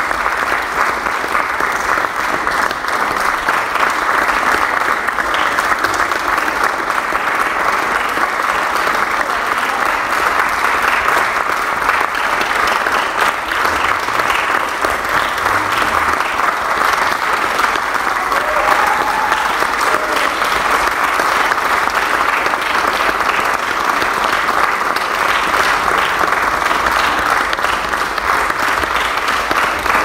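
Audience of about a hundred people clapping, a dense, steady applause that neither swells nor fades.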